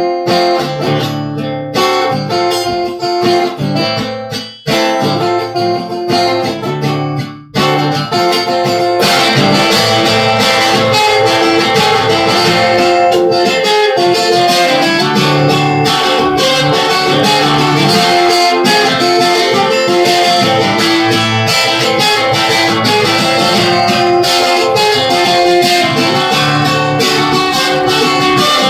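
Guitar introduction of a song with no vocals: single plucked notes with brief gaps for the first several seconds, then a fuller, steadier accompaniment comes in about nine seconds in.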